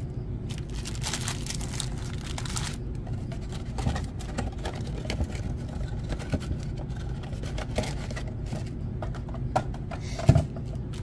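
Trading card packs being handled and set down on a table: scattered light rustles and taps over a steady low hum, with a louder knock about ten seconds in.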